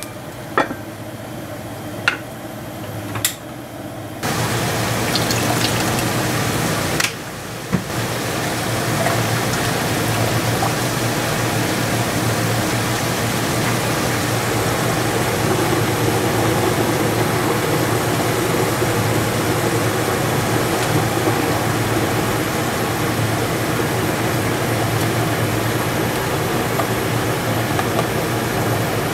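A few light clicks of a rice paddle against an aluminium rice pot. Then, from about four seconds in, a large enamel stockpot of vegetable broth boiling steadily on a gas burner: a constant rushing bubble with a low hum under it.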